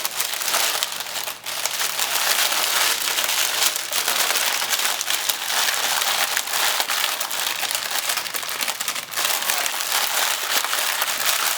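Plastic packaging crinkling and rustling steadily as it is handled, with many small crackles throughout.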